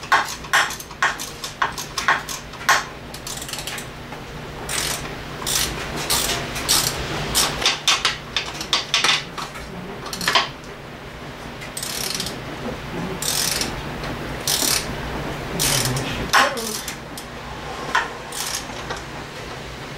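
Hand tools and metal parts of a Yamaha 40 hp Enduro outboard clinking and knocking irregularly as it is reassembled by hand, with a few louder knocks about halfway and near the end.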